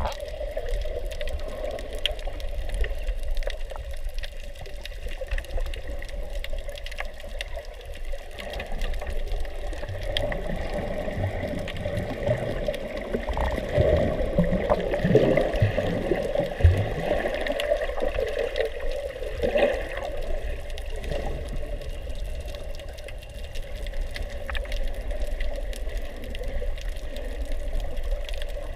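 Muffled underwater water noise heard through a camera's waterproof housing: a steady wash with irregular low sloshing and rumbling, busiest midway through.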